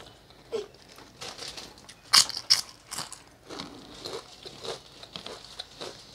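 Close-up eating sounds: a person chewing with crunchy bites while fingers work rice and curry on the plate. Two sharp, loud crunches come about two seconds in, among softer clicks and crackles.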